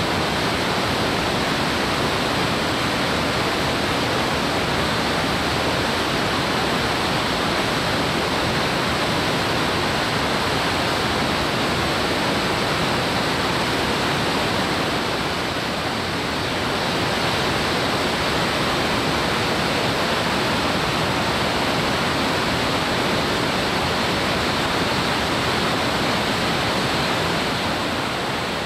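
Whitewater of a mountain river pouring over boulders: a steady rush of falling water, dipping slightly about halfway through and again near the end.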